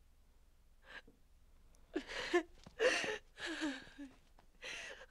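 A person sobbing quietly: several short, breathy gasps with brief wavering voice sounds, starting about two seconds in.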